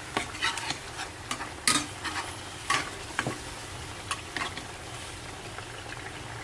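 A spatula scraping and clicking irregularly against a pan as beef is stirred in thickening nasi goreng paste, over a steady sizzle of frying. The strokes thin out over the last couple of seconds.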